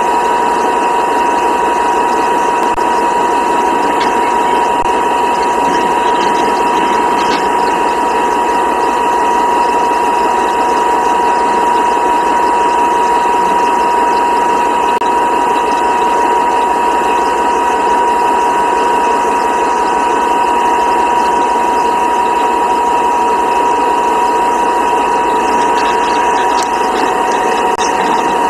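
P&H electric rope shovel working as it loads a haul truck: a steady whine held on one pitch over continuous heavy machinery noise.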